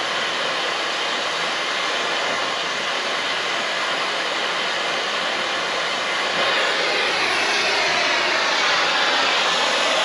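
A machine engine running hard with a loud, steady rushing noise; about six seconds in it gets louder and its pitch rises, as if revving up.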